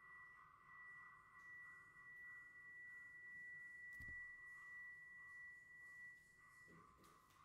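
Faint, steady high-pitched electronic tone, a single held pitch that stops near the end.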